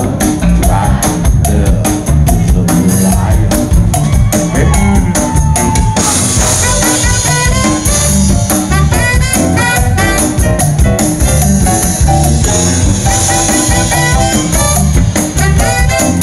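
Live funk band playing a steady drum kit and bass groove, with saxophone and harmonica playing the lead lines over it. A long held note sounds in the first few seconds, and the lead lines get busier from about six seconds in.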